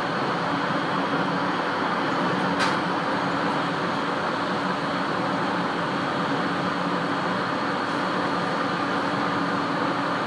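Cabin noise inside an Aoimori Railway 701-series electric train running at speed: a steady running noise of wheels on rail, with one sharp click about two and a half seconds in.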